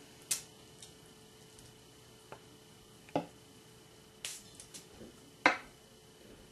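A few sharp plastic taps and clicks as an acrylic paint dabber bottle is handled on a tabletop and its tip pressed down to squirt paint, the loudest about five and a half seconds in. A faint steady hum runs underneath.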